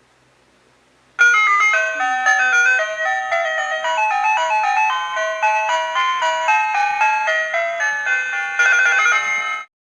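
Music: a bright, fast-moving melody of chime-like notes that starts about a second in and cuts off suddenly near the end.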